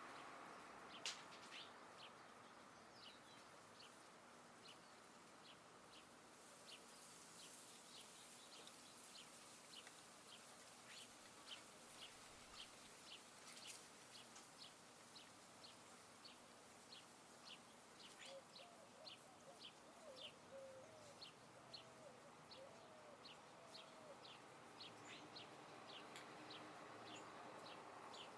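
Faint birdsong: a bird giving short high chirps in a steady series, about one or two a second, with a brief lower warbling call about two-thirds of the way through, over a faint hiss of outdoor air.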